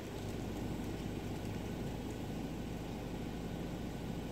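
Volkswagen T25 Transporter engine idling steadily after a cold start, a low, even rumble that grows slightly louder right at the start.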